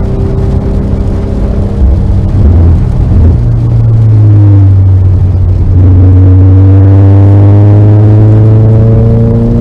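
Car engine running hard on track, with a brief break in the note about two to three seconds in, then accelerating with its pitch rising steadily through the second half.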